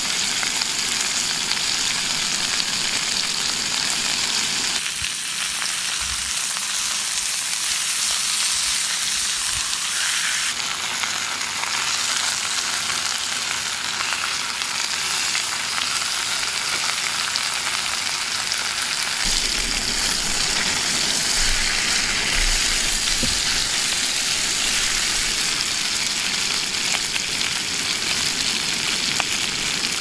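Steak, bell pepper strips and cherry tomatoes frying in a stone-coated frying pan: a steady sizzle of fat and juices. The sizzle changes character a few times, about five, ten and nineteen seconds in.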